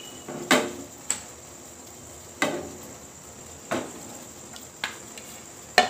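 Crockery and a kitchen knife clinking and knocking as chopped cauliflower florets are moved from a ceramic plate into a bowl: about six sharp, irregular knocks roughly a second apart, a couple of them with a brief ring.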